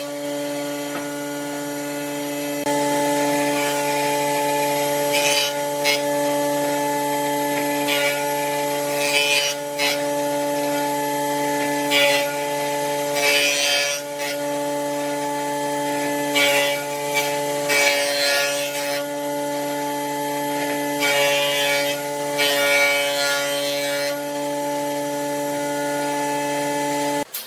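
Jointer running with a steady motor hum while its cutterhead shaves a rough firewood branch pushed across the bed, the cutting noise coming in repeated bursts every second or few as each pass bites into the wood.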